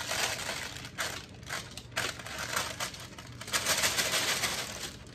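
Irregular crinkling and light clattering in uneven bursts, like loose hard plastic pieces being handled, loudest in the second half.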